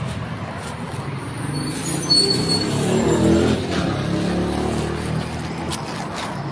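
A motor vehicle passing close by. Its engine sound swells about two seconds in and fades over the next few seconds, with a brief high squeal as it swells, over steady traffic noise.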